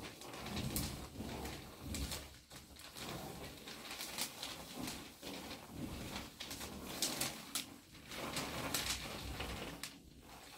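Two peeled crayons scribbling on paper taped to a wall, one in each hand: irregular scratchy strokes, now long sweeps, now short ones, with a soft rubbing rumble as the hands and paper press against the wall.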